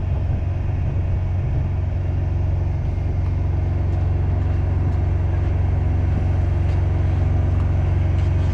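Peterbilt 389's diesel engine idling steadily, a low, even hum, with a few faint clicks from the work on the air bag.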